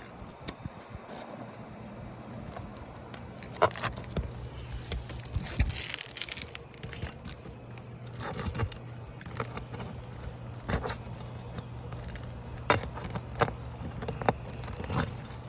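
Tools working under 3-tab roof shingles to loosen them and get at the nails: scattered sharp clicks and knocks, with a short scraping rush about five to six seconds in, over a steady low hum.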